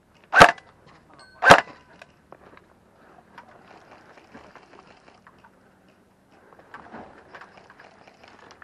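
Two loud, short cracks about a second apart, very close to the microphone, followed by faint scattered ticks and rustling.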